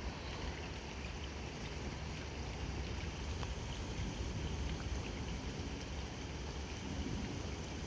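Steady rain falling during a thunderstorm: an even hiss with a few faint drip ticks.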